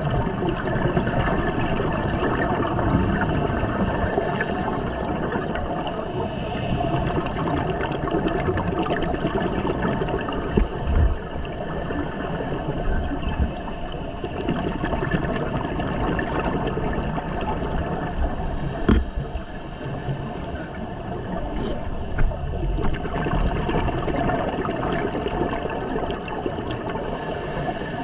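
Underwater water noise picked up by a dive camera in its housing: a steady rushing and gurgling, with a few dull low knocks.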